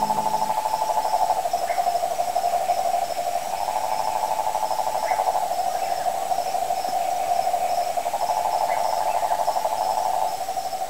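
Frog calling in a steady, rapidly pulsed trill that swells and fades slightly, with faint high insect chirring behind it.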